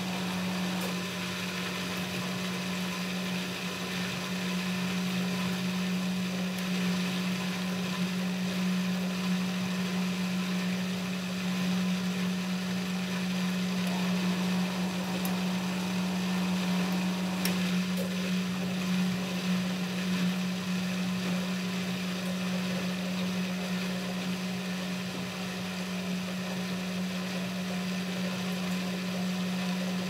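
Eudora Supernova 1002 front-loading washing machine running, its motor giving a steady hum while the drum speeds up from tumbling toward a spin, the wet laundry pressing against the drum wall.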